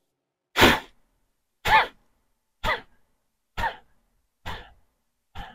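A man's forceful exhalations in a yoga breathing exercise: six sharp breaths out, about one a second, each driven by pulling the belly in, growing fainter toward the end.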